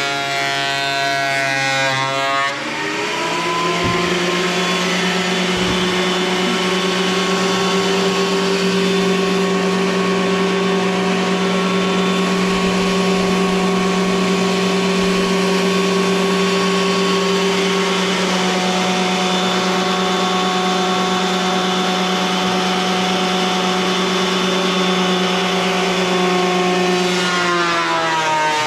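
Craftsman thickness planer running. Its motor drops to a lower, steady pitch about two and a half seconds in, as it takes a board of rough chainsaw-milled lumber, and holds there under load with a steady hiss of cutting. Near the end it speeds back up as the board clears.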